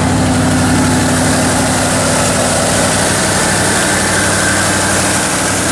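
Old Ford truck's engine idling steadily, heard close up under the open hood.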